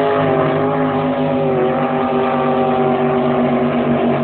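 Motorboat engine running with a steady drone, its pitch wavering only slightly.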